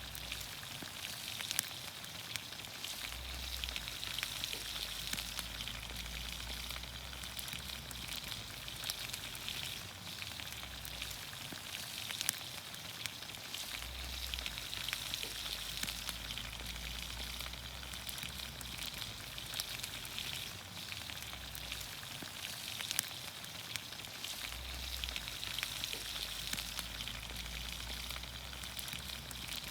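Green beans, onions, carrots and potatoes in olive oil sizzling steadily over a campfire, with many small pops and crackles.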